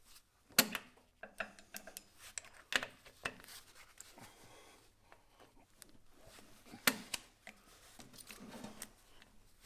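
Hydraulic quick-couplers and hose ends being handled: scattered sharp metallic clicks and knocks, the loudest about half a second in and near seven seconds, with rubbing and scraping between them.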